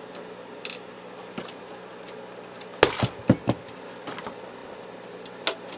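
Hard plastic knocks and clicks from an inkjet printer's housing being handled: a few light clicks, then a quick cluster of sharper knocks about three seconds in, and single clicks near the end.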